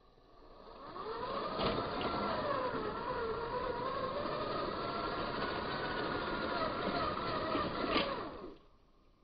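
Twin 370 electric motors and gearboxes of an LDRC P06 Unimog RC truck whining under load as it crawls over a timber, the pitch wavering up and down as the load changes. Two sharp clicks about six seconds apart, and the whine cuts off suddenly near the end.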